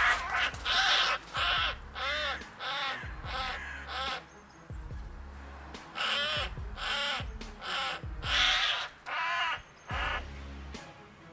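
A crow giving a rapid series of harsh caws, pausing once about halfway through, while a hawk pins it to the ground. These are distress calls.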